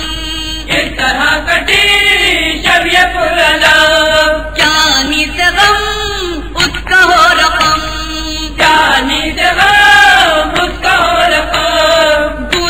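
A male voice chanting a noha, an Urdu lament for Imam Husain, in long melodic phrases that rise and fall with short breaks between them.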